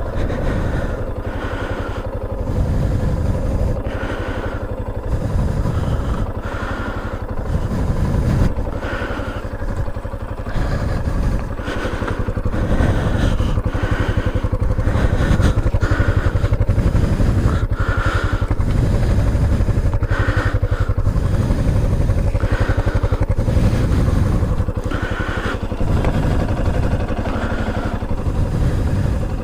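Motorcycle engine running while being ridden, its sound swelling and easing every second or two over a steady hum.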